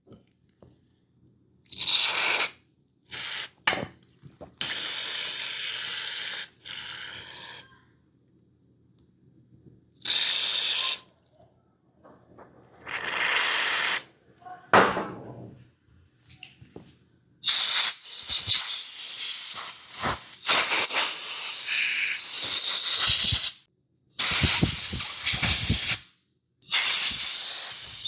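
Repeated bursts of hissing spray from a pressurised nozzle, each lasting one to three seconds and stopping short. The bursts come closer together in the second half.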